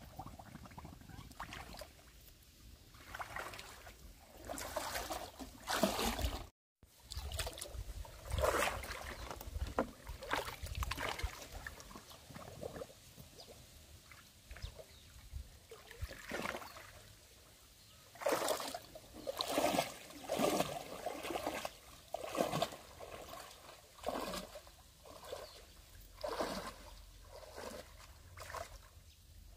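Water sloshing and splashing in irregular bursts, with trickling between them.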